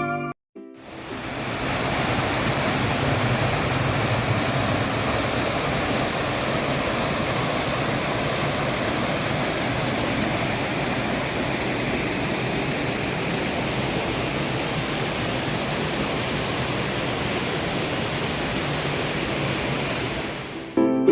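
Valley stream water rushing steadily. It comes in just under a second in and stops shortly before the end.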